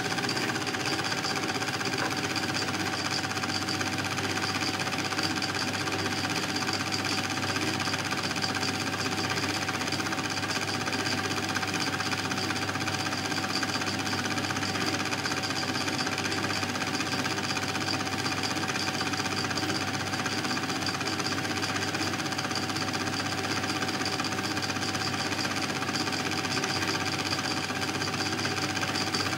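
Film projector running: a steady, rapid mechanical clatter from the film-advance mechanism, unchanging throughout, with a faint constant hum.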